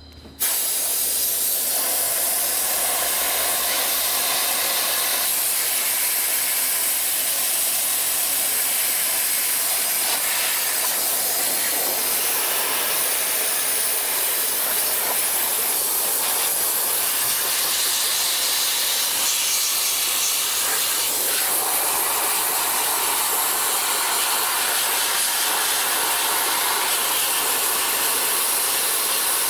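Dry ice blasting gun running, a loud steady hiss of compressed air and dry ice particles blasting the underside of a car. It starts abruptly about half a second in.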